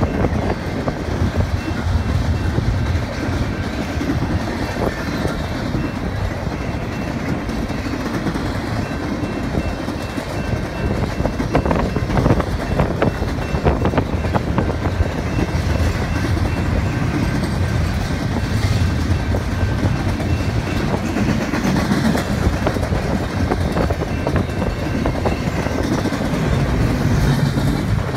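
Double-stack intermodal freight train rolling steadily past at a grade crossing: a loud, continuous rumble of wheels on the rails, with scattered knocks from the cars.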